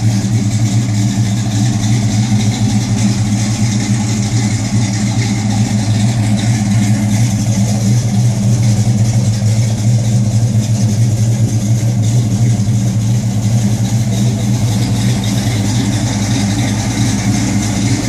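Box-body Chevrolet Caprice idling steadily through Flowmaster 40 Series mufflers, a low, even exhaust note with no revving.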